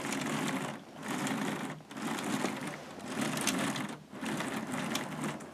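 K'nex electric motor driving the plastic chain tape and gears, a fast steady clatter of plastic teeth and links that swells and dips about once a second. The chain runs smoothly now that its guide rail has been raised to line it up.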